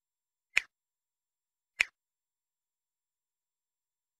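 Two short mouse-click sound effects about a second apart, from a subscribe-button animation, with digital silence between and after them.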